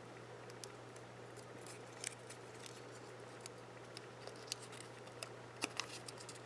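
Faint crinkling and scattered sharp clicks of small paper flower petals being folded and pressed around a brad by hand, the loudest clicks near the end.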